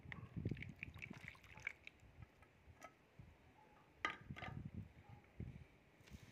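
Milk pouring from a metal pot into a plastic bowl, splashing and dripping in the first couple of seconds, then a sharp knock about four seconds in.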